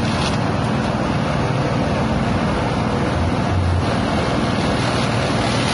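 A banana-stem chopping machine running at speed, driven by its small stationary engine, with a steady, loud, even drone.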